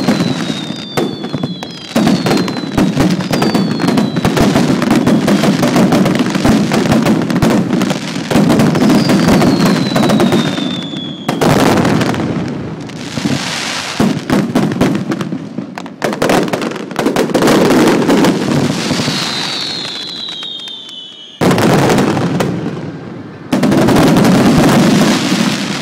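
Fireworks display: dense, rapid crackling and bangs, with falling whistles several times. Fresh volleys break in suddenly at intervals, and the last dies away near the end.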